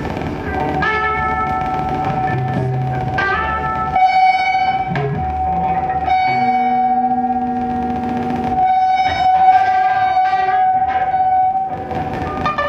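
Improvised experimental music: electric guitar and effects pedals making a steady held drone, with layered pitched tones that swell and fade over it and a lower tone pair in the middle.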